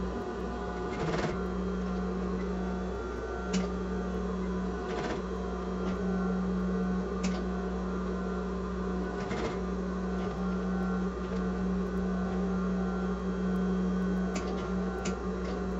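Sewing machine running steadily, stitching bias binding around the edge of a pouch, with a few short clicks and brief slowdowns along the way.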